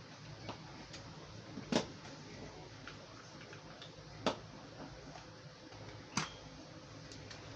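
Scattered small clicks and taps from parts and tools being handled, with three louder sharp knocks about two seconds apart.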